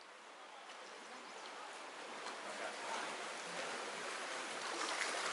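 River water flowing fast over shallow riffles, a steady rushing that grows gradually louder.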